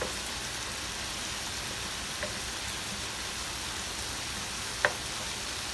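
Shrimp sizzling steadily in garlic butter and lemon in a pan, with a faint tap about two seconds in and a sharp clack near the end as the wooden spoon knocks the pan.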